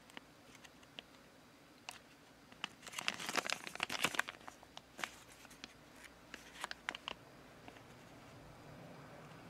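Thin clear plastic blister tray crinkling and clicking as it is handled and flexed in the hands, with a dense burst of crackling about three to four seconds in and scattered clicks after it.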